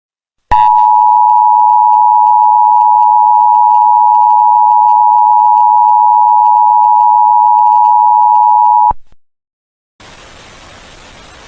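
Emergency Alert System attention signal: two steady electronic tones sounded together, loud, starting about half a second in and cutting off abruptly after about eight seconds, the signal that an emergency warning message follows. Near the end a faint steady hiss of static comes in.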